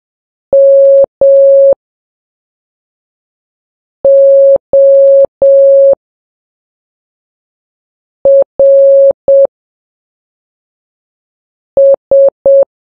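Morse code practice tone: a single steady beep keyed slowly in dots and dashes, with long gaps between letters. The four letters go dash-dash, dash-dash-dash, dot-dash-dot, dot-dot-dot, spelling M, O, R, S.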